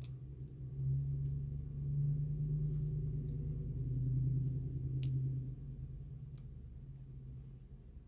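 Lock picking in a small brass pin-tumbler padlock: a few sharp metallic ticks of the pick and tension wrench in the keyway, the clearest about five and six and a half seconds in. A low steady hum swells about a second in and fades out after about five seconds.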